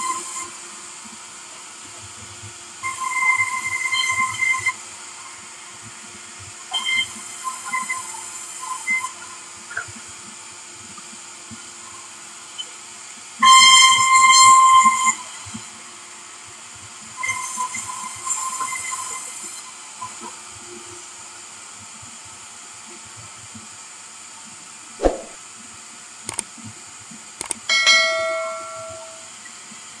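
Sawmill band saw running with a steady high hiss, breaking into a loud high-pitched whine four times as wood is fed through the blade. A few sharp thuds follow near the end.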